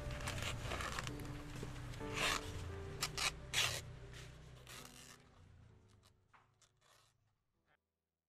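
Soft background music with held notes, fading out over the last few seconds, with several short rasping strokes of a blade cutting through a banana leaf.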